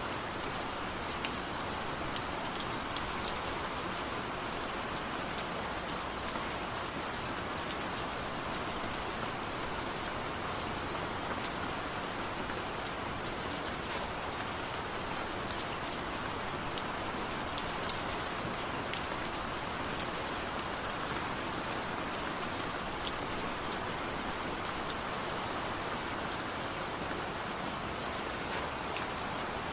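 Steady rain falling: an even hiss dotted with many crisp, separate drop ticks.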